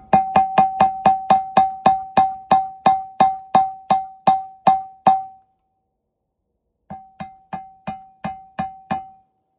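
A single ringing note struck over and over, about three a second and slowing, stopping about five seconds in; after a short pause a fainter run of about seven more strikes of the same note.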